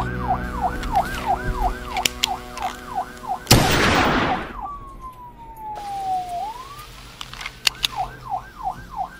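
Police siren cycling rapidly in a yelp, broken about three and a half seconds in by a single loud blast that dies away over a second. The siren then slides down in one slow wail, rises again, and returns to the fast yelp near the end.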